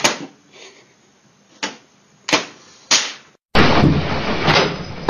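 A run of sharp knocks, four loud and one faint, spaced about half a second to a second apart. About three and a half seconds in, a louder stretch of noise starts abruptly and ends in a hard bang.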